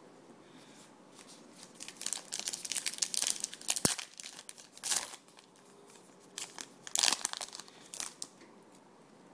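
A trading card pack wrapper being torn open and crinkled by hand: crackling rustles in bursts with one sharp click near the middle, then more crinkling a little later.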